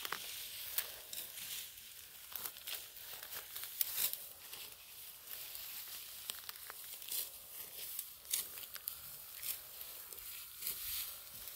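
Dry wheat stalks being harvested by hand, crackling and rustling in irregular crisp snaps and swishes.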